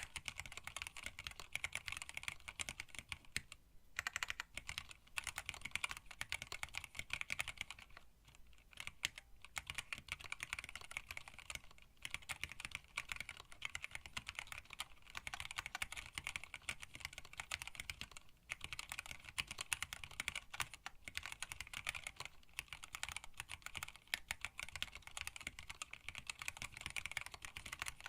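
Continuous fast typing on a hand-wired split mechanical keyboard with Tealios linear switches, PBT keycaps and an acrylic case: a dense run of light key clacks with a few short pauses.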